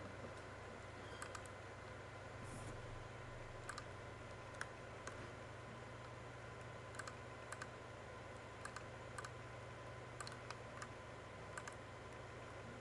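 Computer mouse clicking: about a dozen short, irregularly spaced clicks over a faint steady hum.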